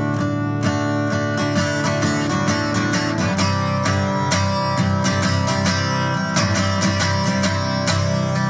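Acoustic guitar strumming chords in a steady rhythm, as instrumental music without singing.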